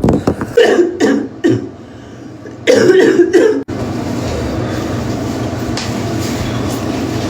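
A young woman's harsh, barking asthmatic cough, brought on by exercising without her inhaler. A run of coughs comes in the first second and a half and another fit about three seconds in. It then breaks off abruptly into a steady background rumble.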